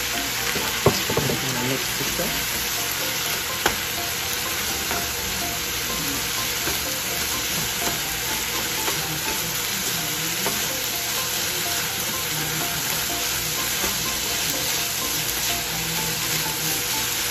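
Vegetable fried rice sizzling steadily in a frying pan while a spatula stirs and scrapes through it. The spatula knocks sharply against the pan about a second in and again near four seconds.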